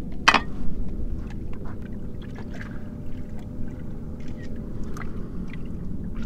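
Water lapping and sloshing against a small flats boat's hull, over a steady low rumble, with a sharp click about a third of a second in and a few lighter ticks.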